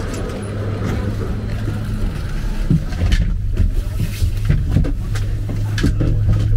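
Detachable gondola station machinery: a steady low hum from the drive and the tyre conveyors that move the cabins through the station. From about three seconds in, short knocks and clicks come at irregular intervals as cabins roll through.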